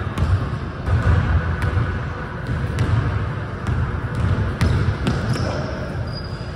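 A basketball dribbled on a hardwood gym floor: irregular low thuds that echo in a large hall, with a few short sneaker squeaks near the end.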